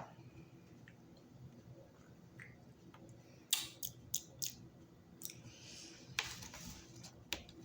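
Handling a small strawberry juice drink container: four quick, sharp clicks a little past halfway, then soft rustling and one more click near the end.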